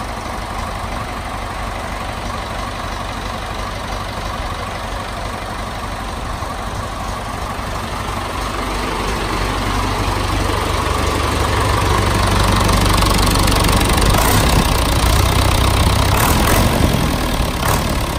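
Freshly rebuilt David Brown 950 tractor four-cylinder engine idling steadily, growing louder about halfway through, with a few sharp clicks near the end.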